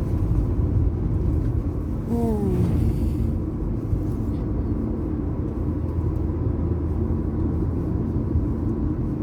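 Steady low rumble of a car's road and engine noise heard from inside the moving car.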